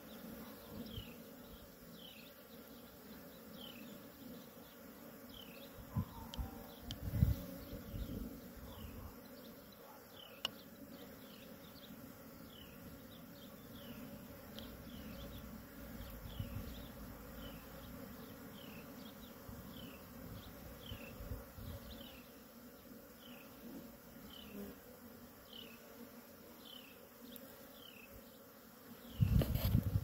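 Honeybees buzzing at a hive entrance: a steady hum of many wings as they fly in and out. A short high chirp repeats about once a second throughout, and a few low bumps come about seven seconds in and again near the end.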